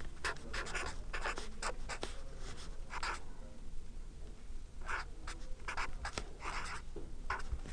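Marker pen writing on paper: a run of short, irregular scratchy strokes as characters are written.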